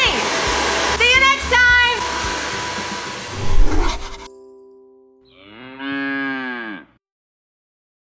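Handheld hair dryer blowing for about three and a half seconds, with a short vocal sound over it about a second in. After it cuts off, a brief steady tone, then a long low call with many overtones whose pitch falls at the end.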